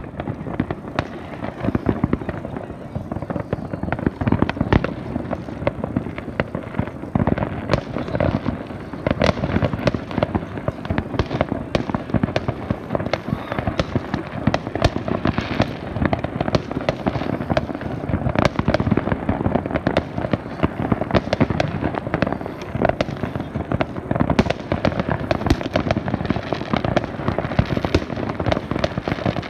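Many fireworks going off at once: a dense, unbroken barrage of bangs and crackles with no pauses.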